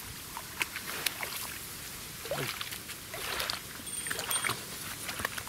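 Hooked crucian carp splashing at the surface as it is drawn into the shallows at the bank, a run of irregular splashes and water noise.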